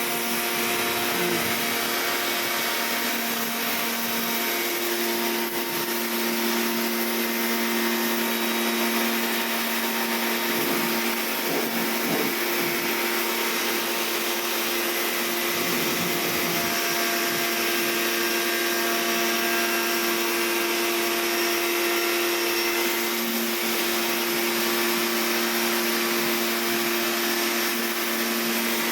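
Kawasaki pressure washer running steadily under load, its motor humming on one even pitch over the hiss of the high-pressure water spray.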